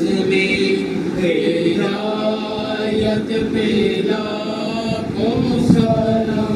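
Unaccompanied male devotional chanting, sung in long held notes that glide from one pitch to the next.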